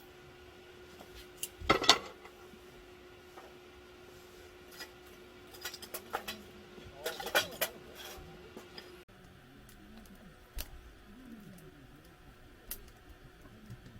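Light clinks and clatter of dishes or utensils being handled, in a cluster about two seconds in and another about six to seven seconds in, with a few single clicks later.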